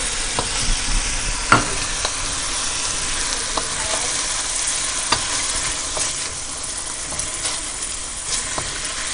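Pork cubes and onions sautéing in oil in a wok, a steady sizzle, stirred with a wooden spatula that knocks and scrapes against the pan now and then, most sharply about one and a half seconds in.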